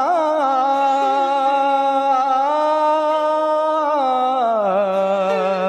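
A man's voice singing a wordless, classical-style held-note passage. It opens with a quick wavering ornament, then holds long steady notes, steps up slightly, and slides down to a lower held note about four and a half seconds in.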